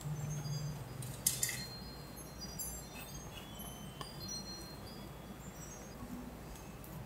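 A plastic spatula working car body filler on a 3D-printed part, with a short scrape about a second in, over faint, scattered high tinkling tones.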